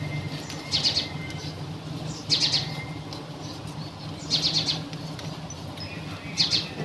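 A bird chirping in short trilled bursts about every two seconds, over a steady low hum.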